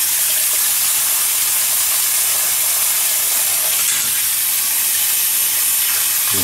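Bathroom sink faucet running in a steady stream, the water splashing over hands being washed under it and into the basin.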